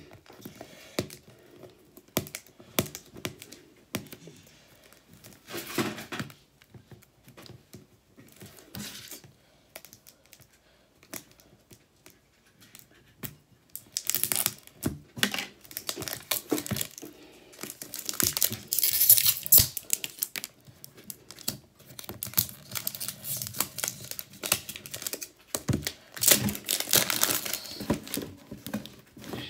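An iPhone 12 box's paper seal strip being torn and pulled off by hand, with tearing and crinkling. Scattered small clicks and rustles come first, then louder, longer stretches of tearing from about halfway through and again near the end.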